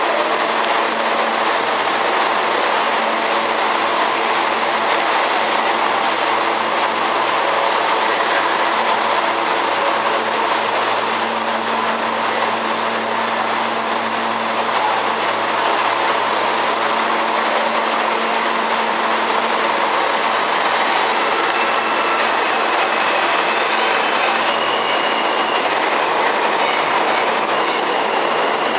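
R160A/B subway train in a station: its equipment hums steadily and the wheels clatter over the rails, with some wheel squeal. Near the end a higher motor whine comes in as it pulls out.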